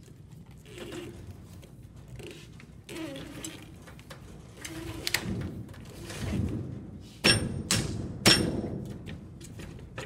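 Solid urethane wheelchair tire being worked onto a metal rim on a tire installer tool: scattered handling and rubbing noises, then two sharp clicks about a second apart in the latter part.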